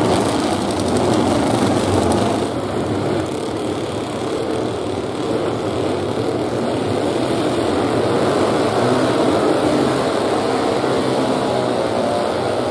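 Several classic racing motorcycles' engines running together, a loud, dense engine din.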